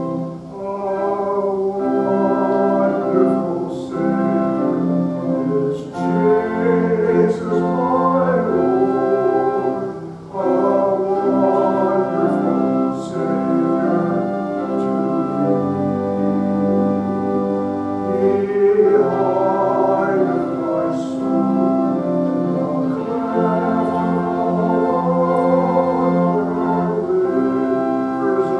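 A voice singing with vibrato over sustained organ chords, in slow phrases with brief breaks between them.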